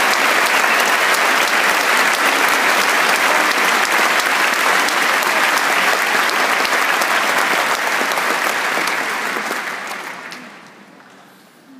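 Large hall audience applauding, with the applause dying away near the end.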